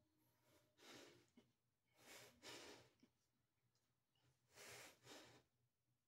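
Faint, heavy breathing of a man exerting himself through dumbbell curl repetitions: three rounds of breath, about every second and a half to two seconds.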